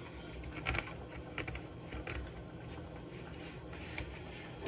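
A few light, scattered clicks and taps from handling things in a kitchen, over quiet room noise.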